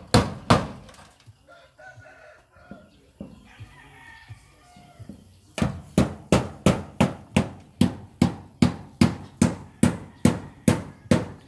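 Two hammer blows, then a rooster crowing faintly for a few seconds. From about five and a half seconds in comes steady hammering, sharp ringing strikes at about three a second.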